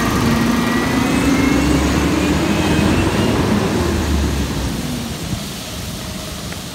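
CNG-powered Heil automated side-loader garbage truck pulling away, its engine and driveline whine rising in pitch as it gathers speed, then fading as it moves off.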